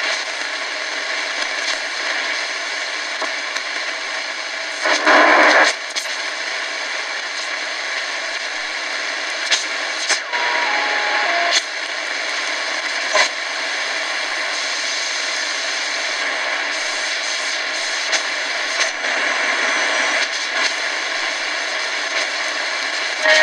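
Shortwave static and hiss from a KNSTAR RX-608ACW portable radio's speaker, with no station coming through clearly. Scattered crackles and pops run through it, with a louder burst of noise about five seconds in and a few brief stepped tones around ten seconds in.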